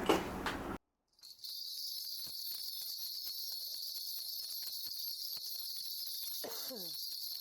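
Crickets chirping: a steady, high, dense chirring that starts abruptly about a second in after a brief dead-silent gap. A short falling tone sounds near the end.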